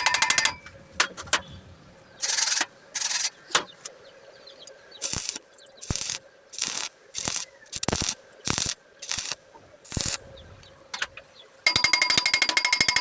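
Welding arc crackling in a string of short bursts, about a dozen half-second strikes with gaps between them. A continuous buzzing crackle starts near the end.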